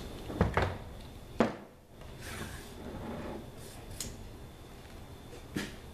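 Several sharp knocks and clicks with some soft rubbing in between: a screwdriver set down on a hard floor and hands working a Picatinny rail loose on a rifle's polymer receiver. The loudest knock comes about a second and a half in.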